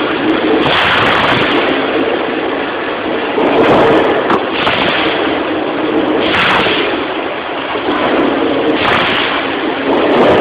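Band saw blade cutting through a 100 mm stainless steel 304 bar, with a steady, loud metal-cutting noise and a faint hum from the machine. The noise swells briefly every two seconds or so.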